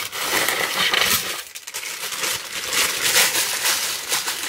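Packaging being handled and pulled away from two small cauldron ornaments as they are unboxed: a dense run of rustling with many small crackles and clicks, easing briefly about a second and a half in.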